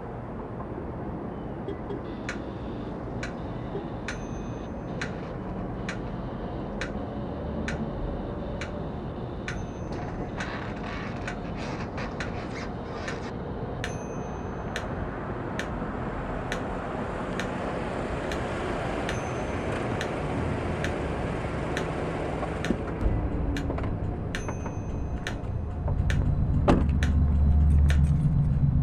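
A steady rumbling noise with sharp metallic ticks that ring briefly, scattered unevenly throughout. About 26 seconds in, a deep low hum comes in and gets louder.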